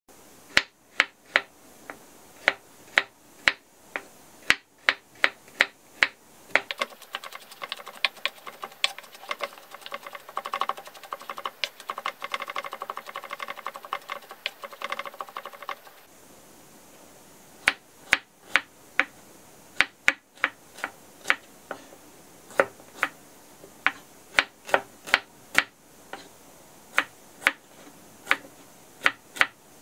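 Kitchen knife chopping on a wooden cutting board. First come separate sharp chops through garlic cloves. About 7 seconds in, a fast run of rapid mincing strokes begins and stops around 16 seconds. Then come separate chops again as shallots are cut.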